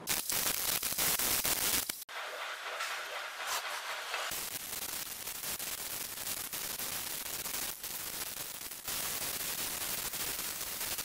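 Hand sanding of an aluminium engine head cover with dry sandpaper, played back sped up so the strokes run together into a dense, steady hiss. The sound changes abruptly about 2 seconds in and again about 4 seconds in.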